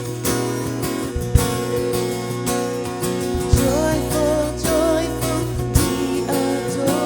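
Live worship band music: a strummed acoustic guitar over sustained chords, with a beat struck about every two seconds and a wavering melody line coming in about three and a half seconds in.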